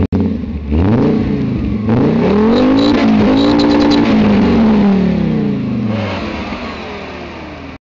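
A car engine is free-revved, heard right at its twin-tip exhaust. There is a quick blip at the start, then a long rev that climbs to a peak about four seconds in and falls back toward idle.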